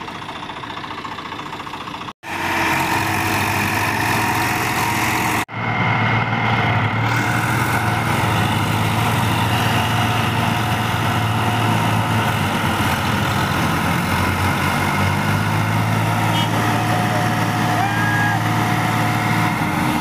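Farm tractor diesel engines running steadily while tractors chained together work to free one stuck in deep mud. The sound drops out briefly twice, about two and five and a half seconds in, and is louder after the first break.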